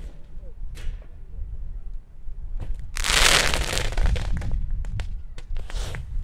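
Pyrotechnic special effects firing: a faint pop about a second in, then a loud rushing burst lasting about a second, followed by several sharp cracks and a shorter rushing burst near the end.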